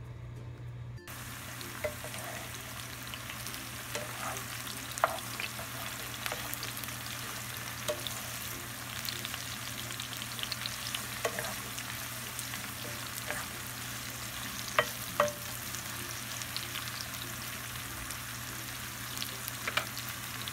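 Sliced mushrooms sizzling in hot oil in a nonstick frying pan, starting about a second in, stirred now and then with a wooden spatula. Scattered sharp clicks and knocks sound through the steady sizzle.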